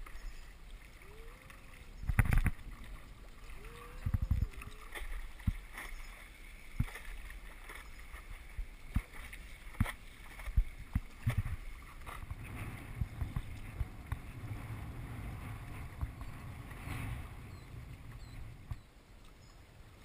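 Paddling a stand-up paddleboard: paddle strokes splashing and dripping in the water, with two heavier knocks of the paddle against the board about two and four seconds in and a string of small clicks and knocks after. Past the middle a low steady rush of water along the board comes in for several seconds, then eases off near the end.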